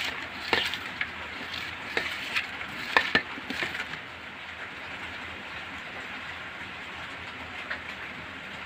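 Gloved fingers rubbing and squeezing sliced onions against a steel plate, with scrapes and clicks in the first half, over a steady hiss that carries on alone after about four seconds.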